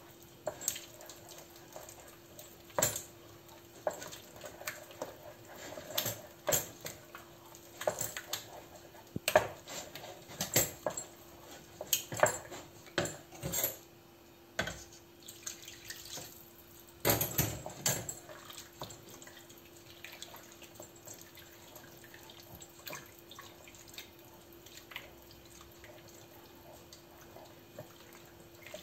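Wooden spoon stirring thick béchamel in a stainless steel pot: wet squelches and splats, with knocks of the spoon against the pot. They come often for the first eighteen seconds or so, then sparser and quieter. A faint steady hum runs underneath.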